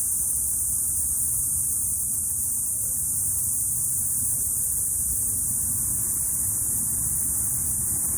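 Cicadas buzzing in a steady, high continuous drone, over a low steady rumble.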